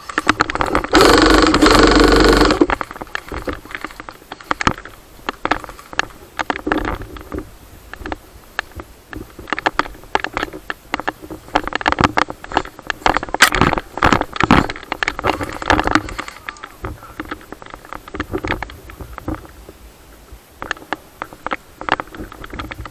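Airsoft electric rifle firing a full-auto burst about a second in, lasting about two seconds. After it come scattered clicks and crackles of movement through dry brush.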